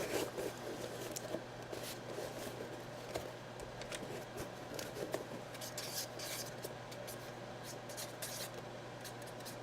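Faint rustling, scraping and small clicks of a jersey and its packaging being handled, over a steady low hum.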